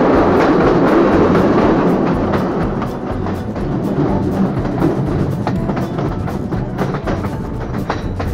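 Background music with a percussive beat of drum and wood-block-like strikes over held low notes.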